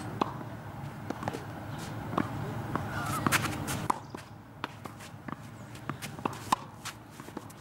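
Tennis rally: sharp pocks of rackets striking a tennis ball and of the ball bouncing on the court, about one or two a second, some louder than others.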